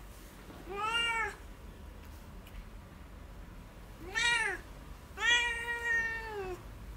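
Domestic cat meowing three times in protest while its paws are held for claw trimming. The first two meows are short and rise and fall; the third is the longest, about a second and a half, held level and then dropping off.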